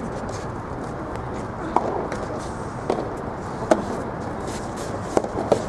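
Soft tennis rubber ball being hit back and forth in a rally: a series of sharp pops from racket strikes and bounces, roughly a second apart, with two close together near the end, over a steady outdoor background hiss.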